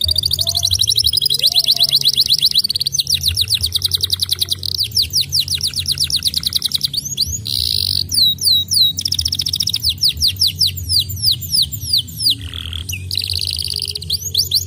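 Domestic canary singing a continuous, fast song: rapid trills of repeated down-sweeping notes that change phrase every few seconds, broken by buzzy rolling notes near the middle and near the end.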